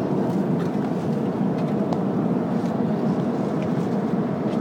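Steady airliner cabin noise: the engines and rushing air heard from inside the passenger cabin, an even low roar.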